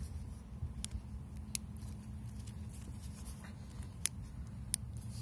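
Small sharp clicks and light handling as a watch band's quick-release spring-bar pins are fitted into the lugs of an LG G Watch Style smartwatch: four distinct clicks over a steady low hum.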